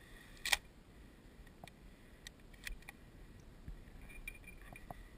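Faint scattered clicks and light taps, with one sharper click about half a second in.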